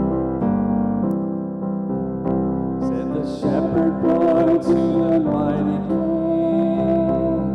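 Live worship music: electric piano chords, with singing coming in about three seconds in and holding long notes.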